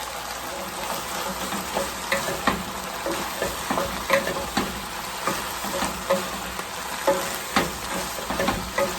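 Beef and vegetables sizzling in a hot pan while being stir-fried, with a steady frying hiss and irregular clicks and scrapes of a spatula against the pan.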